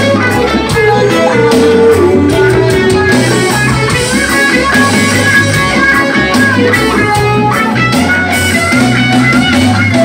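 Live band playing an instrumental passage: a lead electric guitar line over bass guitar and drum kit, loud and steady.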